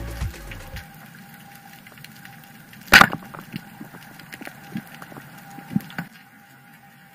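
A speargun firing underwater: one sharp crack about three seconds in, over faint scattered clicking and crackling, with a couple of smaller knocks near the end. Background music fades out in the first second.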